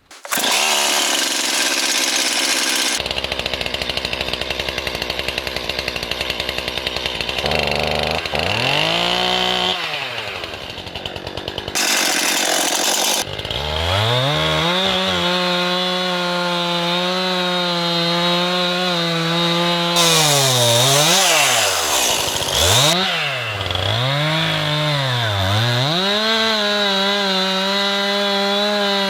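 Stihl MS 261 two-stroke chainsaw running at high revs while cutting into the hung tree's trunk. Its pitch drops and comes back up several times as the throttle is let off and opened again.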